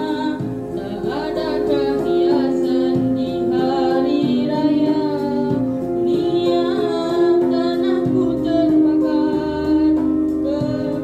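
A boy singing a slow melody into a microphone over a backing track of long held notes.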